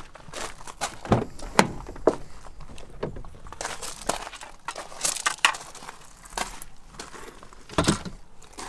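Irregular knocks and clicks, a dozen or so unevenly spaced, some louder thuds among them.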